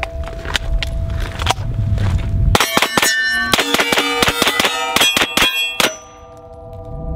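Smith & Wesson M&P FPC 9mm carbine firing at steel targets: a few spaced shots, then a fast string of shots from about two and a half seconds in, stopping near six seconds. Each hit rings the steel plates, which keep ringing on.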